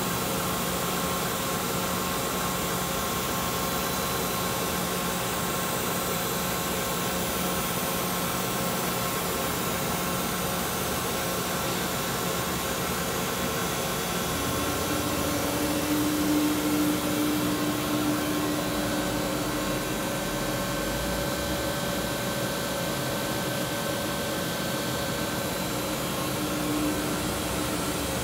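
Giddings & Lewis G60T horizontal boring mill running under power: a steady electric hum and whir. About halfway through, a new, higher steady tone comes in and stays.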